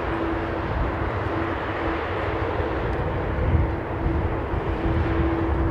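Boeing 787-9 Dreamliner's jet engines at taxi idle, a steady rushing noise under a low rumble, with a steady hum that fades about a second in and returns near the end.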